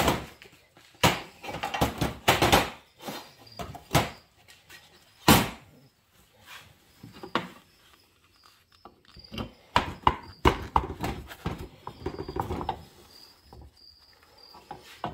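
Irregular knocks and clunks of Husqvarna 266 chainsaw crankcase halves and hand tools being handled on a workbench. The loudest is a sharp knock about five seconds in.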